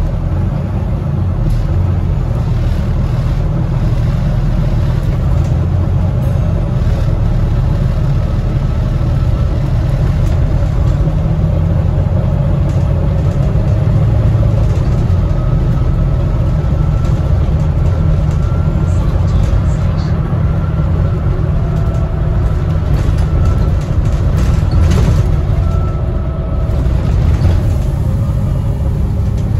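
A Volvo B9TL double-decker bus's diesel engine and road noise heard from inside the passenger saloon as the bus drives along: a steady low rumble. A faint thin whine joins it from about halfway through.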